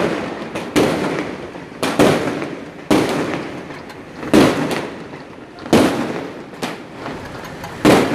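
Celebration fireworks going off as a series of single loud bangs, about one a second, each dying away in a short echoing tail.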